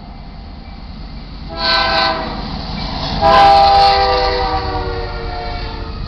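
Air horn on the lead diesel locomotive of a freight train sounding for a grade crossing: a short blast about one and a half seconds in, then a longer, louder blast from about three seconds in that falls slightly in pitch before fading. Under it runs a steady low rumble of the approaching locomotives.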